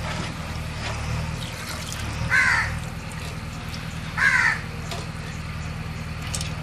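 A crow cawing twice, about two seconds apart, over a steady low hum.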